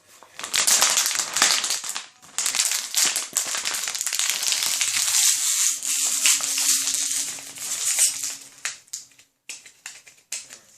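Carbonated drink fizzing in a freshly opened capped bottle: a dense, loud crackle that thins to scattered pops near the end.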